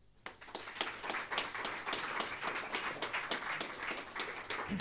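Small audience applauding, the clapping breaking out just after the start and going on steadily.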